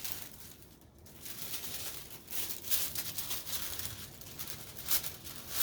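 Paper and wrapping being handled: rustling and crinkling with a few louder crackles.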